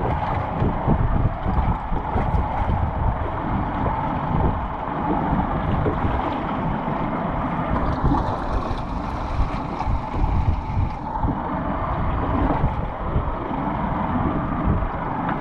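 Wind buffeting the microphone over a steady wash of sea and boat noise on an open-ocean boat.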